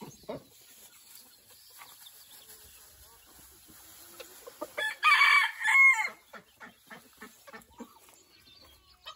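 A rooster crows once about five seconds in, a loud call of about a second and a half in two parts. Quieter chicken clucks come before and after it.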